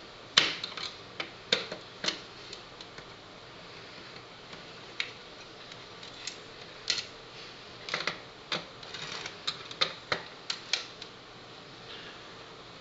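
Screwdriver working the screws out of a DVD drive's sheet-metal case: scattered sharp metal clicks and taps at irregular intervals, with a small cluster of them near the middle.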